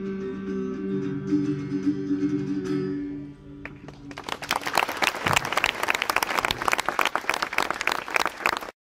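Guitar chords ring out for the last notes of a song and die away. About four seconds in, a crowd breaks into applause, which stops abruptly when the recording cuts off.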